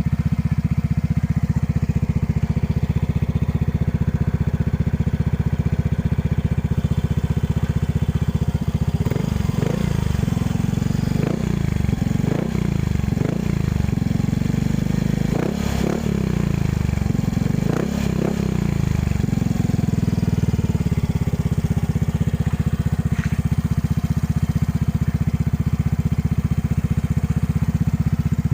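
Yamaha Mio i 125 S scooter's single-cylinder four-stroke engine idling through a gutted ('kalkal') stock muffler, blipped about six times to quick revs in the middle before settling back to a steady idle.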